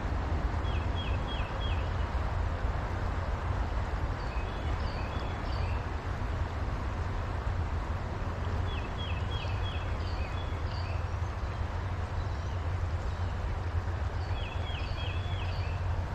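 A steady low rumble of wind on the microphone, with a small bird singing short phrases of quick repeated notes about every four to five seconds and a few higher chirps in between.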